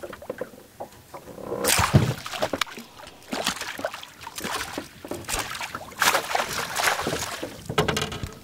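Water splashing and knocking around a small fishing boat, in a run of short irregular bursts, as a hooked small fish is brought to the boat.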